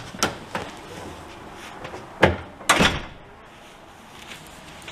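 A door being handled: a few light clicks, then two sharp thuds about half a second apart a little over two seconds in as it swings shut.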